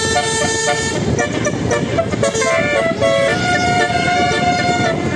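Bus telolet horn, a set of tuned air horns, playing a quick melody of held notes that step up and down in pitch, over a continuous rumbling noise.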